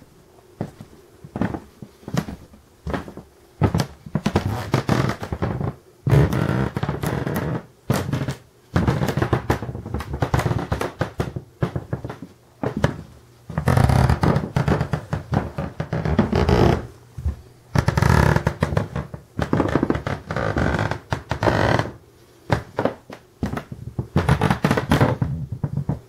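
Wooden floorboards creaking under footsteps: sharp clicks and cracks between long, drawn-out creaks that each last a second or more.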